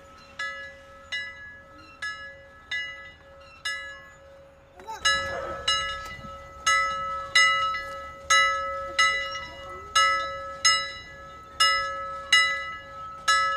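A bell struck over and over at a steady pace, about three strikes every two seconds, each ringing out and fading, over a steady tone. It gets louder about five seconds in.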